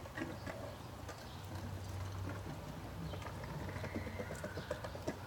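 Child's small bicycle with training wheels rolling across wooden deck boards, the wheels clicking and knocking over the joints between the boards.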